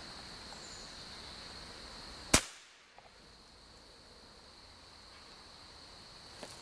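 A single rifle shot: one sharp crack about two and a half seconds in, over a steady high hum.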